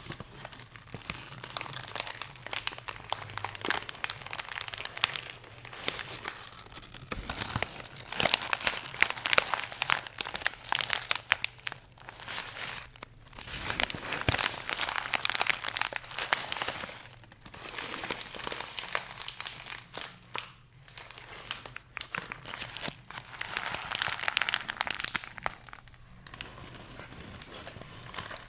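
Packaging crinkling and rustling as it is handled close to the microphone, in several bouts of a few seconds each with short pauses between.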